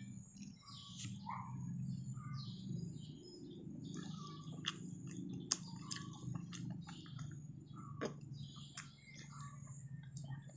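Close-up chewing and mouth noises of a man eating fish by hand: repeated wet clicks and lip smacks. Small birds chirp in the background.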